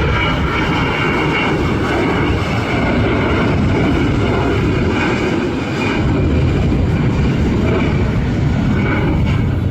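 Airbus A321 airliner's jet engines running loud and steady at close range, with a high whine in the engine noise that fades after about two seconds.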